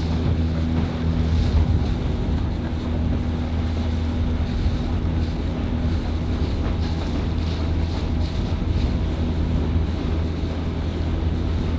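A motor launch's engine running at a steady pitch, under wind buffeting the microphone and the rush of water.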